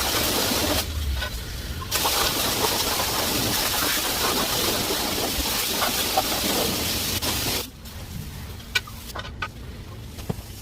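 Self-serve car wash pressure-wash wand spraying in a steady hiss, released briefly about a second in, then spraying again until it cuts off suddenly near the end, leaving a few faint clicks.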